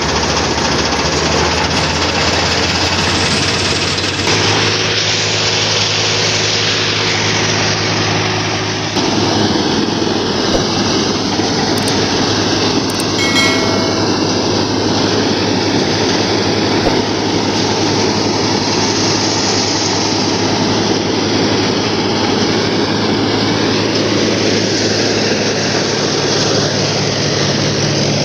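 Mahindra 475 tractor engine running under load as it belt-drives a chaff cutter, whose pulleys whirr and blades chop dry fodder stalks. The mechanical noise is loud and steady throughout.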